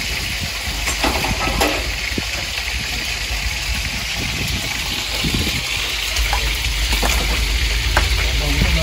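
Steady rush of running water, with a few light clicks and knocks.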